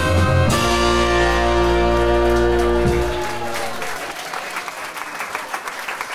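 A big band with a saxophone section ends the song on a held final chord that cuts off about three seconds in. The audience then breaks into applause.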